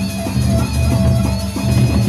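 Sasak gendang beleq gamelan playing: large barrel drums beaten in a busy, continuous rhythm over the ringing of gongs and other metal percussion.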